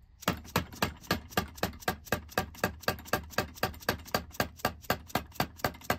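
Hammer tapping a flat-bottom punch in quick, even strokes, about five a second, driving the old wooden handle out of a double-bit axe head held in a vise.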